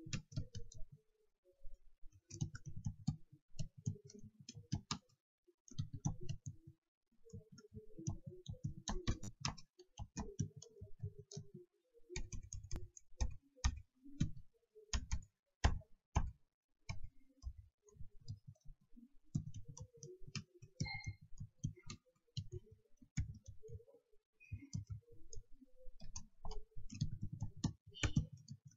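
Keys of a computer keyboard being typed at an unhurried pace, about two keystrokes a second, in short runs of clicks with brief pauses between words.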